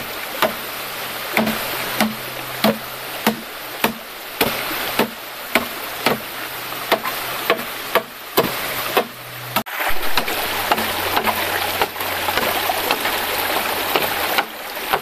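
A bolo knife chopping into a green bamboo pole, opening it at the nodes: sharp strikes a little under two a second over running stream water. The chopping stops about two-thirds of the way in, leaving the steady rush of the stream.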